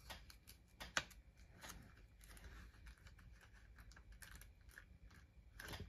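Near silence with faint scattered clicks and rustles of trading cards and plastic being handled, with one sharper click about a second in.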